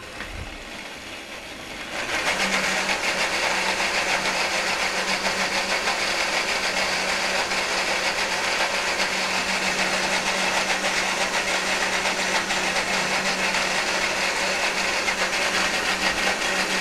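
Countertop blender switched on, running at low speed for about two seconds, then jumping to full speed with a steady motor hum as it purees a thick carrot-and-cashew vegan cheese sauce.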